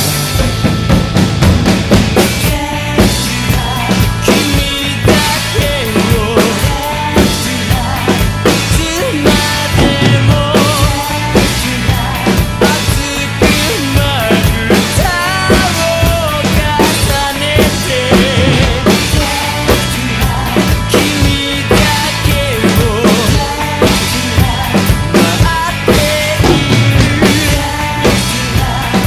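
Rock drum kit played live over a recorded rock song, a steady beat of kick and snare hits under Paiste cymbals, including a China. Drum strikes fall densely and evenly, with the recorded song's melody running underneath.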